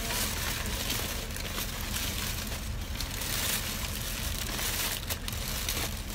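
Plastic takeout bag rustling and crinkling in irregular bursts as it is handled, over a steady low rumble.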